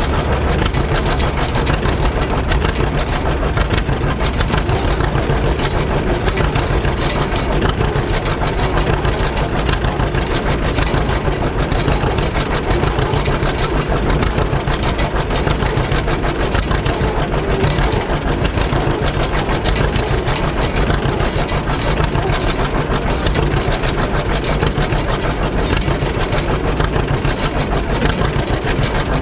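Two-cylinder engine of a 1943 John Deere B tractor running steadily, with a rapid, even beat of exhaust pulses.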